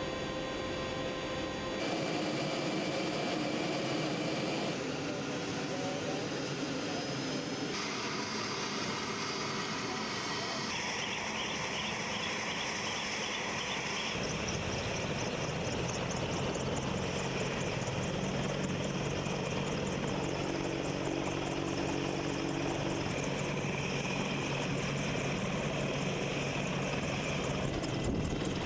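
AH-64 Apache attack helicopter running, with the whine of its twin turboshaft engines and the noise of its rotor. The sound changes abruptly every few seconds in the first half, like cuts between clips. About halfway in it settles into a steady low rotor drone.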